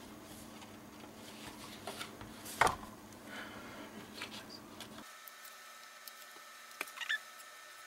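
A paper-and-card folder being handled and turned over on a craft mat: soft rustling with one sharp knock about a third of the way in, then a couple of light clicks near the end. The low background hum drops away suddenly after about five seconds.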